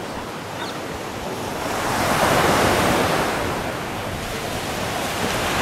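Sea surf breaking and washing onto a sandy beach, a steady rush that swells to its loudest about two seconds in, eases off, then builds again near the end.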